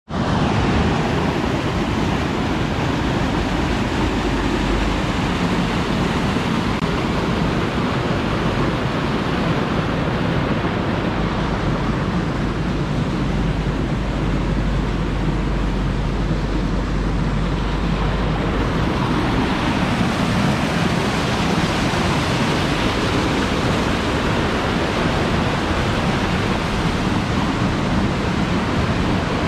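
Steady rush of fast white water tumbling down a stone-walled river channel.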